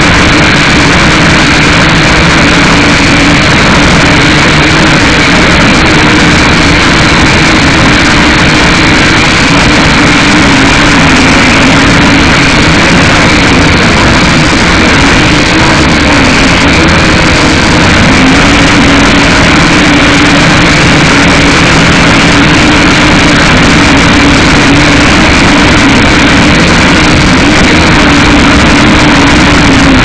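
Syma X5C quadcopter's small motors and propellers running in flight: a steady buzzing whine whose pitch wavers up and down, over a constant hiss of wind.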